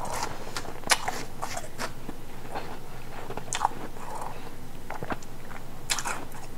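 Ice being bitten and chewed in the mouth: irregular sharp crunches, with loud cracks about a second in, near the middle and near the end.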